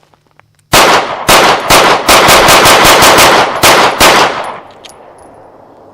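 CZ P-10 C 9mm pistol fired in a quick string of about a dozen shots over some four seconds, the middle ones coming several a second, followed by a fading echo.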